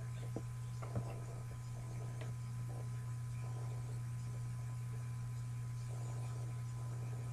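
Steady low electrical hum with a faint high steady tone over it, and a few soft mouse clicks in the first couple of seconds.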